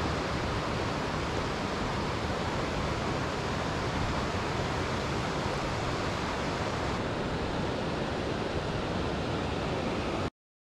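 Waterfall: a steady, loud rush of falling water that starts abruptly and cuts off suddenly near the end.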